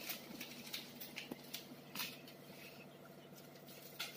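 Scattered light clicks and taps of plastic toy shop pieces being handled, about five in all, over a steady faint hum.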